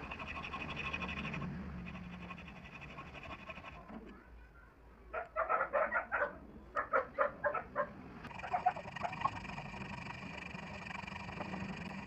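Small hand file rasping on a small metal trigger part clamped in a vise: about a dozen quick, short strokes in two runs near the middle, over a faint steady background hum.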